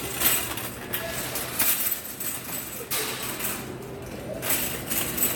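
Footsteps while walking, with irregular knocks and shuffles over a steady low hum and faint voices in the background.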